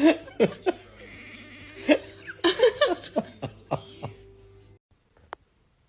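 A person laughing in short gasping bursts, which cut off suddenly near the end, leaving a couple of faint clicks.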